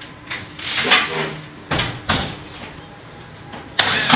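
A few knocks and clatter of handled materials, then near the end a corded electric drill starts running as it is pressed to the ceiling trim to fasten it.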